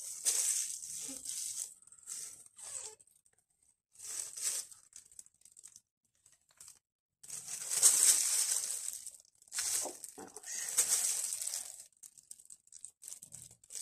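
Thin plastic crinkling and rustling in irregular bursts as it is handled, with short quiet pauses. The longest and loudest bursts come in the second half.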